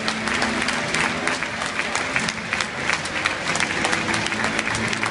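Stadium crowd applauding, a dense spray of many hands clapping, greeting a player running out onto the pitch.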